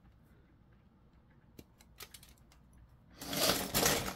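A few small clicks of sprue cutters snipping a plastic part from its sprue. About three seconds in, a louder scraping, rustling noise for about a second.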